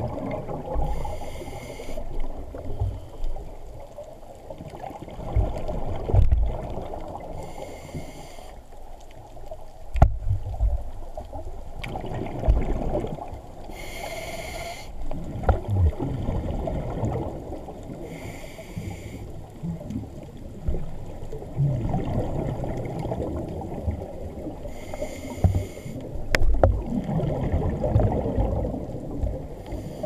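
Underwater sound of a scuba diver's regulator: a hissing breath burst every four to six seconds, over low rumbling water noise with a few sharp clicks.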